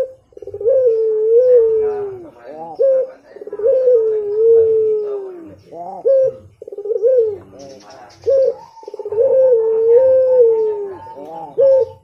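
Puter pelung, a domestic collared dove, cooing. It gives three long, drawn-out coos that rise, hold and then fall away at the end, with short rising notes between them.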